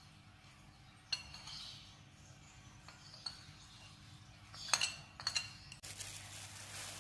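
A few light clinks, the loudest pair about five seconds in, then a steady rustle as a plastic-gloved hand starts mixing dry flour in a bowl.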